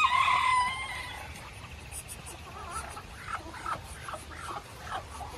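Poultry calls: a loud drawn-out call with a steady pitch right at the start, then a run of short, wavering calls from about two and a half seconds in.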